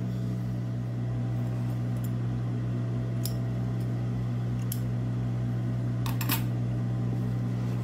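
Small scissors snipping loose threads on a sewn pocket: several sharp, separate clicks spread over the few seconds, the strongest about six seconds in, over a steady low hum.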